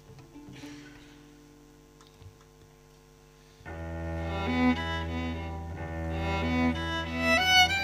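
A few quiet seconds, then a string quartet starts playing about three and a half seconds in, with a held low cello note under the violins.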